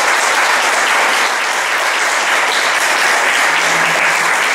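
Audience applauding: many people clapping in a steady, dense wash of claps.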